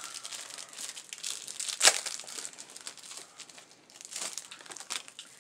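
Small clear plastic jewelry bag crinkling as it is handled and opened, irregular crackles with one sharper, louder crack about two seconds in.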